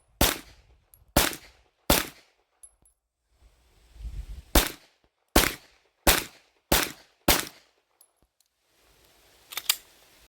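Semi-automatic pistol shots in quick strings: three about a second apart, a pause, then five more about 0.7 s apart. A smaller double report comes near the end, and faint high pings sound between shots.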